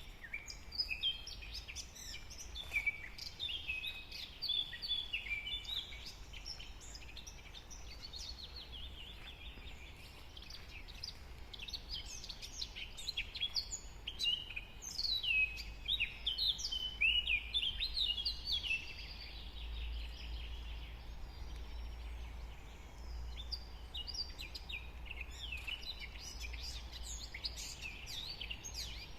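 Several forest birds singing at once: a dense chorus of short high chirps, trills and quick falling notes, busiest in the middle of the stretch. Underneath runs a steady low rumble.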